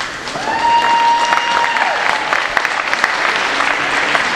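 Audience applauding: many hands clapping in a dense, steady patter. A brief steady whistle-like tone sounds over the first couple of seconds.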